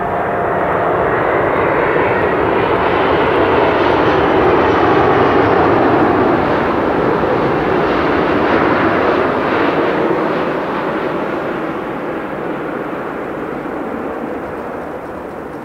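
Airbus A380-861's four Engine Alliance GP7200 turbofans at approach power during landing, a loud jet roar that swells as the airliner passes low and close, peaks about five seconds in, then slowly fades as it descends toward the runway.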